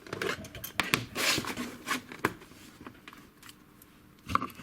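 Small metal padlock parts being handled on a work surface: a few light clicks and knocks, with a scraping rustle about a second in.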